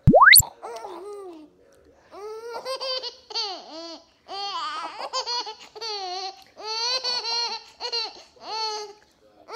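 A fast rising whoosh sound effect at the very start, the loudest sound, then high-pitched playful cooing and giggling in short rising-and-falling runs, from a mother playing with her baby.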